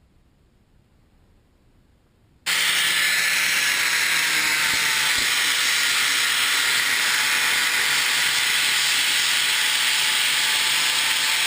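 MIG welding arc on steel: a steady sizzling hiss that starts abruptly about two and a half seconds in, after near silence.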